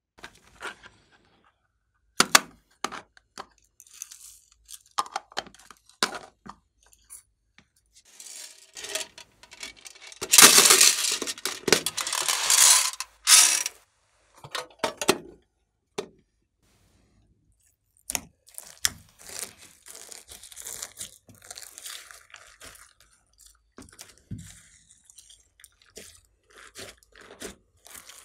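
Small beads poured from a plastic case onto glossy slime in a glass dish: a dense rattling rush lasting about three seconds, the loudest sound, after scattered clicks and taps. Later, hands fold and squish the slime, with many small crackles from the beads mixed in.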